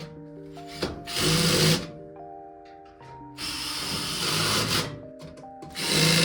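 Power drill driving screws into a dryer's sheet-metal back panel, in three short runs of about half a second to a second and a half each, over background music with sustained notes.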